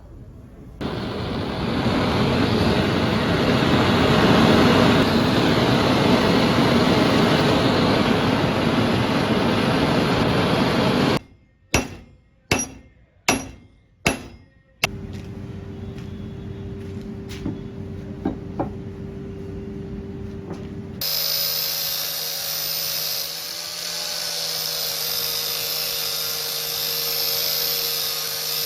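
Workshop power tools in use. A rough grinding or sanding noise lasts about ten seconds, then come four sharp metal strikes, then a small motor-driven tool runs with a steady whine.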